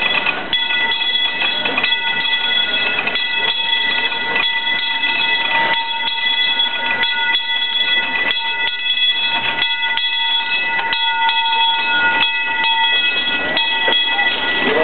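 Steam train, a 1902 Baldwin 2-4-4T tank locomotive with its passenger cars, rolling slowly into a station, wheels clicking irregularly over the rails. A steady high-pitched ringing of several tones runs under it throughout.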